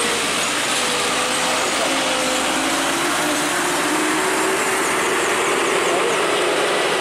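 Engines of a minivan and a light pickup truck grinding slowly up a steep, rough gravel slope, with the drone of loaded trucks queued behind. The engine note is steady, its pitch drifting slowly down over a few seconds in the middle.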